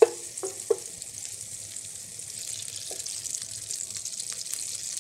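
Fat sizzling and crackling as it heats in a heavy saucepan, a steady hiss with fine pops that builds slightly. Three short knocks sound in the first second.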